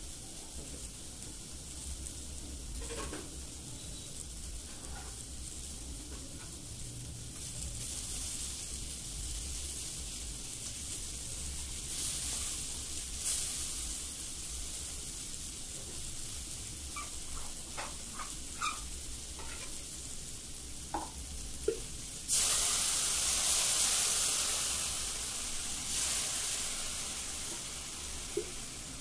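Chopped vegetables and instant noodles sizzling in an aluminium kadai, with a few light clicks. About 22 seconds in, the hiss suddenly grows much louder for a few seconds, then eases off.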